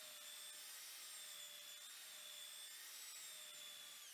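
Handheld belt sander running faintly with a steady motor whine while sanding plywood edge banding flush, then switched off right at the end, its pitch falling as it spins down.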